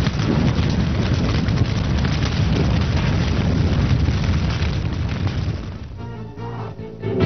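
Closing music: a dense, rumbling passage with a strong deep low end, which dies down about six seconds in.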